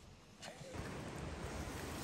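Wind buffeting the microphone outdoors: a rushing noise with gusty low rumbles that starts suddenly under a second in.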